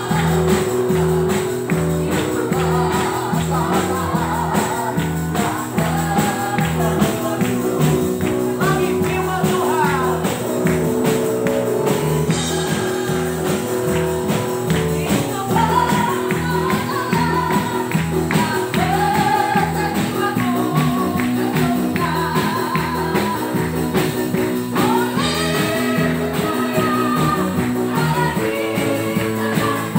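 Live gospel worship song: a group of singers with a church band and drum kit, playing to a steady beat.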